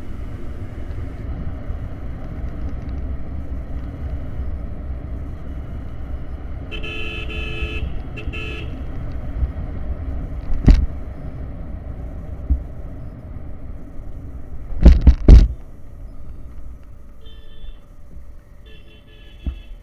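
Motorcycle riding on a wet road, with a steady low rumble of engine and wind. A vehicle horn sounds in two blasts about seven seconds in, sharp loud knocks come near eleven and fifteen seconds, and short horn toots sound near the end as the ride quietens.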